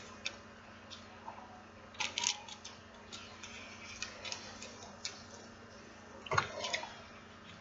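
Light handling of small plastic nail-art packets: scattered soft clicks and crinkles, with a louder rustle about six seconds in.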